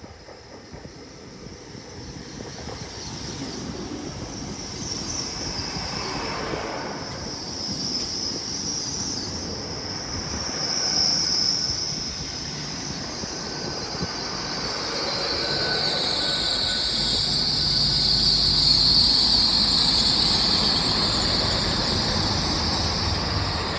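Class 800 bi-mode train drawing closer and growing louder, with high-pitched wheel squeal. From about two-thirds of the way in, the low hum of its underfloor diesel engines joins, and the sound is loudest near the end.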